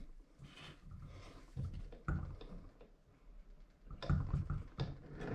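Faint clicks and soft knocks of hands working a kayak propeller pedal drive, turning its gears and propeller by hand while the housing bolts are threaded in. The handling sounds are a little louder about two seconds in and again around four seconds in.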